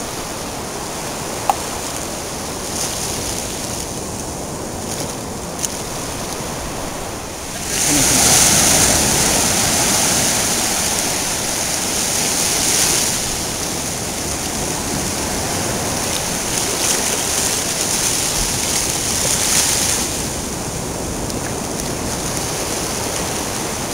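Shallow surf breaking and washing up over sand: a steady rush of water that swells louder about eight seconds in and eases back again near twenty seconds.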